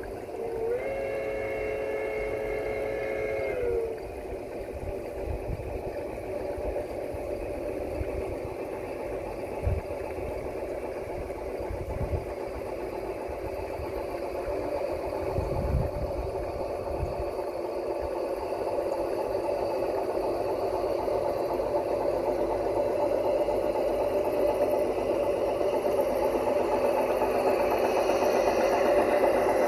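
A model steam locomotive whistle blows for about three seconds near the start, its pitch dropping as it cuts off. Then the running sound of two large-scale model Shay geared locomotives grows steadily louder as they approach, with a few low thumps along the way.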